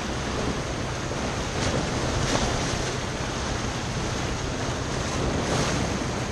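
Ocean surf washing over rocks in a steady wash of noise with a few louder surges, and wind rumbling on the microphone.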